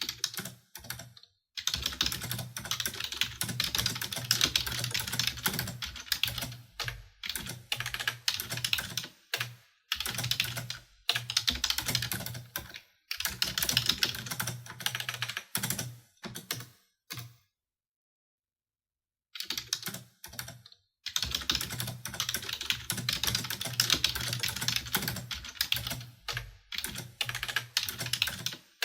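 Typing on a computer keyboard: fast runs of key clicks lasting a few seconds each, broken by short pauses, one of them about two seconds long around the middle.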